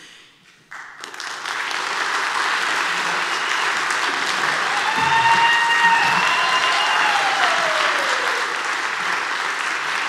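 Audience applause breaking out just under a second in and swelling to a steady clapping, with a few cheers rising above it midway, for a string ensemble at the end of its piece.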